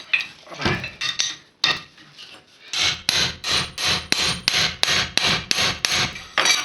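Hand hammer blows on steel, struck through a metal plate set against a GAZ-24 Volga rear axle shaft's wheel bearing to drive the bearing off the shaft. A few spaced blows come first, then a steady run of about four blows a second from about three seconds in.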